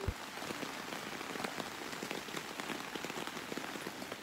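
Heavy rain falling steadily: a dense hiss dotted with many quick, separate drop ticks.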